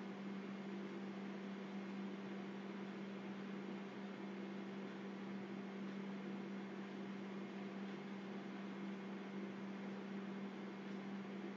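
Steady low electrical hum over a constant hiss, unchanging throughout: the recording's background noise.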